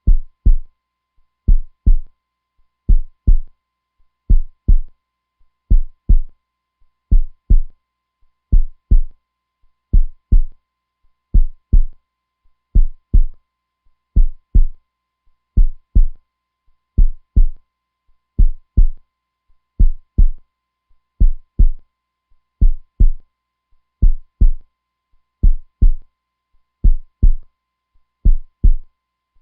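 Heartbeat: a deep, steady lub-dub, two thumps close together, repeating evenly about once every second and a half.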